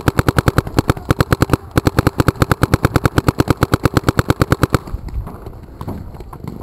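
Paintball marker firing rapidly, about ten shots a second, in two long strings with a brief break about a second and a half in; the firing stops about five seconds in.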